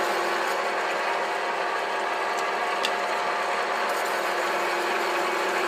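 Metal spinning lathe running with a steady hum while a hand-held half-round tool is pressed against the spinning 22 mm copper tube, reforming it.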